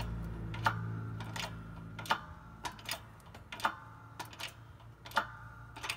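About ten sharp, irregular metallic ticks, each with a brief ring, as a press slowly drives a new tapered wrist pin bushing into a Cummins 4BT connecting rod's small end. A low hum fades out about a second in.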